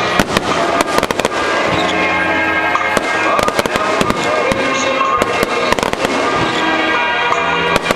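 Aerial fireworks shells bursting in quick succession, a dense run of sharp bangs and crackles, with music playing underneath.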